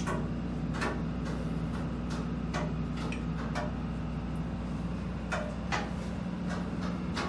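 Footsteps and light knocks on steel deck plating inside a ship's machinery space, an irregular run of short clicks over a steady low hum.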